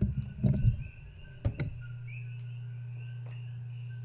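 Short high chirps repeating about twice a second over a steady low hum that switches on abruptly near the two-second mark; a few knocks and clicks come before the hum.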